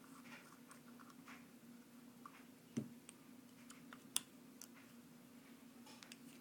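Faint small clicks and taps of a hex wrench working the screws of a Tekin Redline brushless motor's rear end bell cap, with two sharper clicks about three and four seconds in, over a steady low hum.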